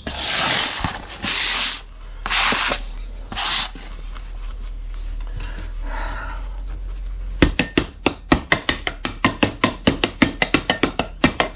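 Loose moulding sand swept off the bench with a hand brush in about four strokes, then a metal rod rapping rapidly on the moulding box, about seven sharp metallic taps a second with a light ring, to loosen the mould before its halves are parted.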